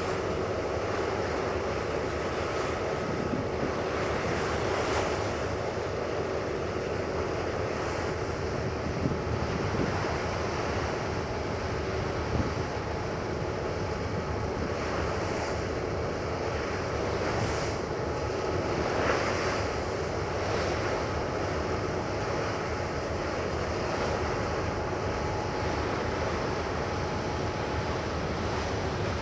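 Wind buffeting the microphone over rough, wave-washed harbour water, steady throughout, with a faint hum from the engines of a high-speed catamaran ferry passing close by.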